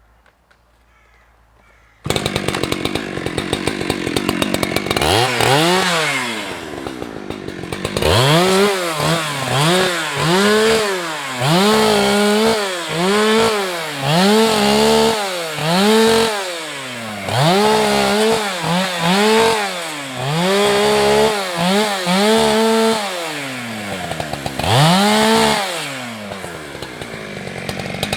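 Husqvarna 365 two-stroke chainsaw revved in short repeated bursts, roughly one every second and a half, each rising in pitch, held briefly and falling back, as when snedding branches off a felled trunk. It comes in abruptly after about two seconds of near quiet.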